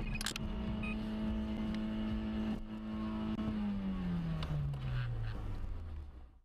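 Car engine running at high, steady revs just after a crash, its pitch then sliding down over about two seconds as the engine winds down. A couple of sharp knocks from the impact come right at the start.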